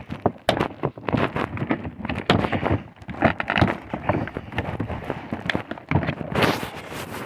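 Plastic bubble-wrap packaging being handled and pulled at, crinkling and crackling with many quick irregular cracks.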